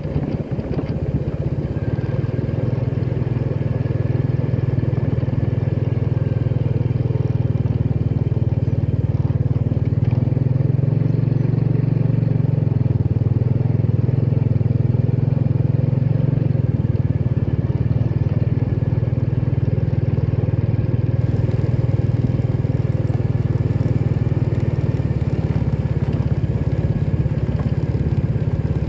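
Motorcycle engine running steadily while being ridden at low speed.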